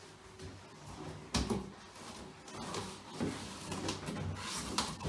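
A handful of sharp knocks and clunks, roughly a second apart, as of hard objects being handled and set down.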